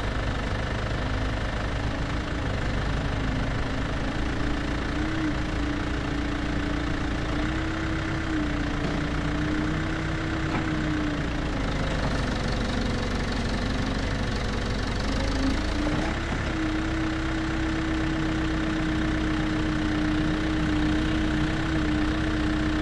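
Excavator working: its diesel engine runs steadily with a whining tone that shifts up and down in pitch several times, dropping lower for a while midway and stepping back up about two-thirds of the way through.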